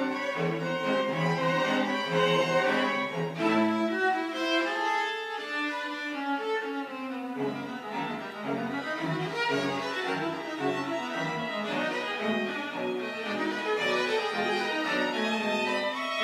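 String quartet of two violins, viola and cello playing live, with the notes moving continuously and a walking low line underneath.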